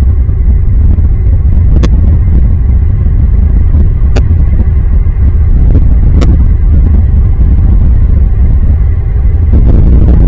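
Loud, steady low rumble of wind buffeting the microphone, with three short sharp clicks about two seconds apart.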